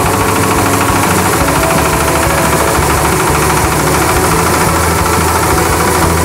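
Jiang Fa single-cylinder diesel engine running steadily, driving a MAKTANI husk-free rice mill under load as it mills paddy into white rice.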